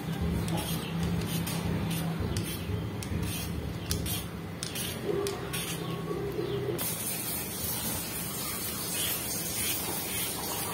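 Y-shaped vegetable peeler scraping the skin off a raw potato in short, quick strokes, then off a carrot.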